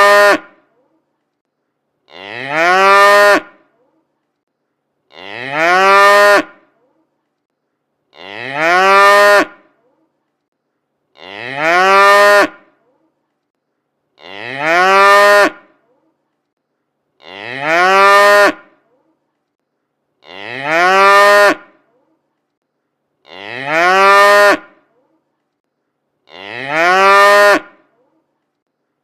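Cow mooing: one drawn-out call, rising in pitch as it begins, repeated about every three seconds with dead silence in between. Every call is identical, so a single moo is being looped.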